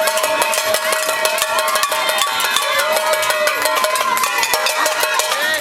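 Fast dance music: a melody holding long notes over dense, regular clicks of hand-clapping and percussion.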